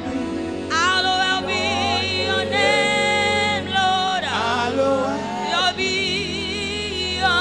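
A woman singing a gospel worship song into a microphone, holding long notes with vibrato and sliding through runs, over a steady sustained backing.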